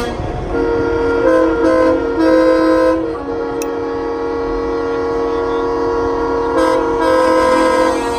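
Semi-truck air horns blowing, several tones at once like a train horn: three short blasts in the first three seconds, then one long held blast with a louder blast near the end.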